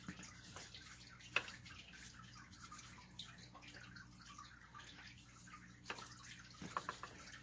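Faint handling noises and small metal clicks from working on an 8 hp Tecumseh engine with its head off, with one sharp tap about a second and a half in and a few more clicks near the end, over a low steady hum.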